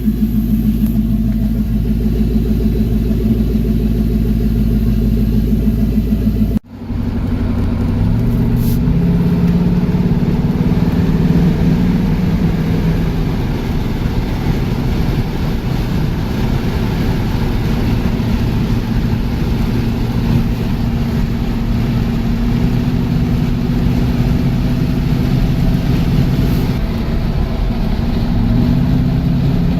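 A 1986 Porsche 928's V8 running with its rear mufflers bypassed: a steady, pulsing idle, cut by a brief break about seven seconds in. After the break the revs rise a little and hold, then rise again near the end.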